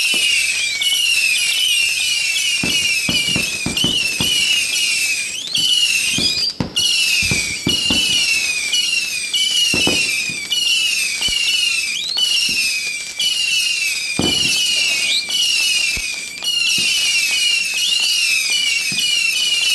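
A ground fireworks cake firing shot after shot into the air: sharp launch pops and thumps in quick clusters, a few of them with a short rising whistle. A steady, fast, high chirping runs underneath throughout.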